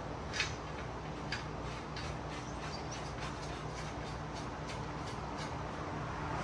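Scattered light metallic clicks and taps of steel lift parts and nuts being handled as an outside link arm is fitted onto its studs, over a steady low hum.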